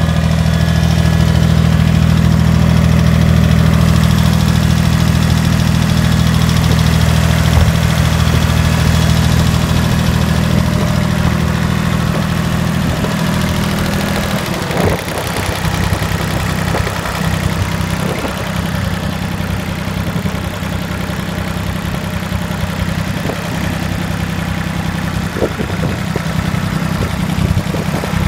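International 234 Hydro tractor's three-cylinder diesel engine running at a steady speed. About halfway through the even note turns rougher, with scattered knocks.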